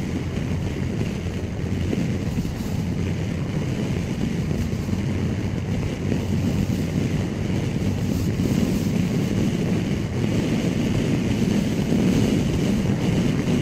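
Touring motorcycle riding at steady road speed: a constant rush of wind over the microphone mixed with engine and road drone, getting slightly louder about halfway through.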